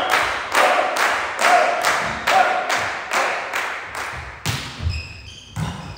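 Rhythmic hand clapping, about two claps a second, that stops about four and a half seconds in. A low thud and a few short squeaks follow as the volleyball rally starts.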